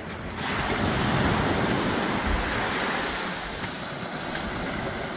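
Small surf waves washing up the sand, swelling about half a second in and easing off over the next few seconds, with wind buffeting the microphone.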